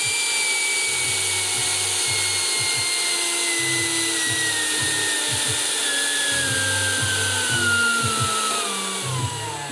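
Electric ducted fan of a radio-controlled MiG-15 model jet running with a high whine, its pitch falling slowly as the throttle is eased back, then dropping quickly and winding down near the end.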